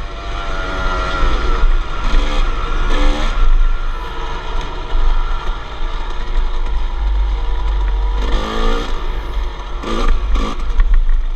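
250cc two-stroke dirt bike engine revving up and down as the throttle is worked, with repeated rising pitch sweeps. Heavy wind rumble on the microphone.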